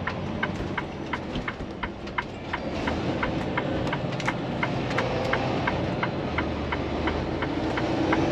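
Turn-signal flasher clicking steadily in the cab of a Freightliner semi truck, about three ticks a second, over the low drone of the truck's diesel engine during a right turn.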